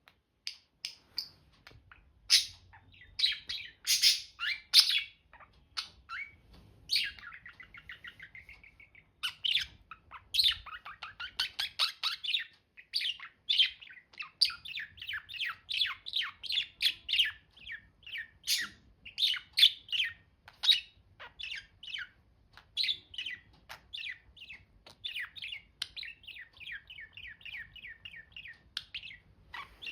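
Budgerigars chirping and warbling in quick, continuous runs of short calls, with a softer rapid chatter around eight seconds in and again near the end.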